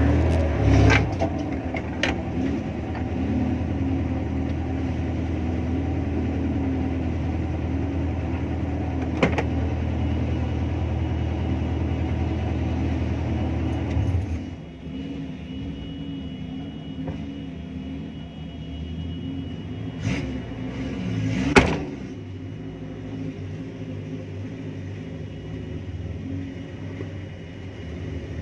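An off-road 4x4's engine rumbling as it drives slowly along a rough dirt track, the rumble easing off about halfway through. A couple of sharp knocks are heard along the way.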